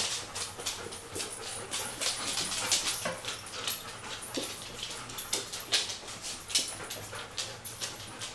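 Golden retrievers and an Irish setter whimpering, with many short, sharp clicks of their claws on a hardwood floor as they move about.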